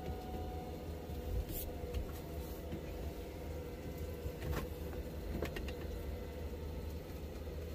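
Nissan GQ Patrol 4WD's engine running at low revs, heard from inside the cabin as the vehicle creeps slowly forward: a steady low hum. A few light clicks and knocks come through in the middle.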